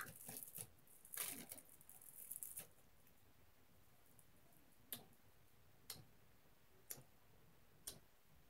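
Faint rustling and handling noise for the first two or three seconds, then a clock ticking faintly and evenly, about once a second.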